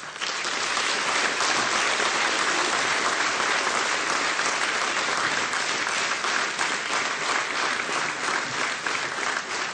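Applause from a large seated audience: dense clapping that starts abruptly and holds steady.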